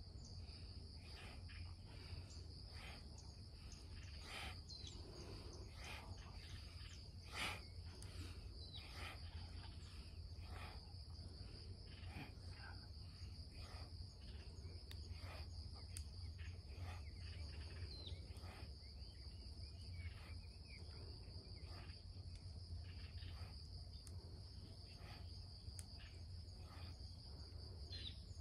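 A steady high-pitched insect drone, unbroken throughout. Faint short rustles and knocks are scattered over it, the sharpest a single click about seven seconds in.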